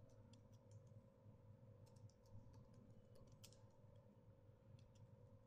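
Faint typing on a computer keyboard: irregular, scattered key clicks over a faint steady background hum.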